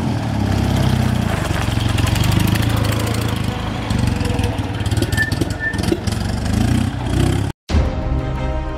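Old motorcycle engine running and revving as the bike pulls away and rides off, its pitch rising and falling. About seven and a half seconds in it cuts off abruptly and music starts.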